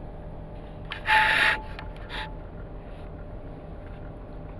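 Handling noise: something rubs against the microphone in a loud scuffing burst about a second in, then a shorter, weaker scuff a second later, over a faint low steady hum.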